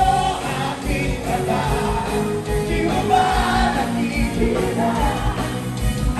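A live band playing a song with electric guitars and singing over a steady beat, with many voices in the crowd singing along.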